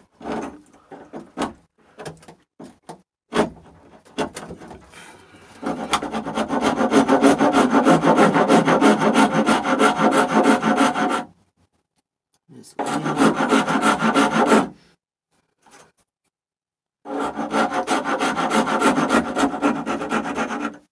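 Coarse rasp filing the inside of a narrow slot in birch wood. A few light scrapes and taps come first, then three bouts of fast, steady back-and-forth rasping with short pauses between them, the first about five seconds long.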